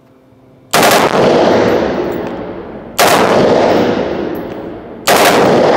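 Caracal 816 5.56 mm gas-piston rifle firing three short full-auto bursts, about two seconds apart, at a cyclic rate slower than an HK416's. Each burst rings on and dies away slowly in the indoor range.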